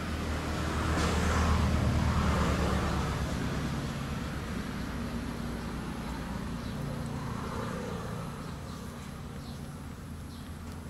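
Motor vehicle engine running steadily, growing louder over the first couple of seconds and then slowly fading.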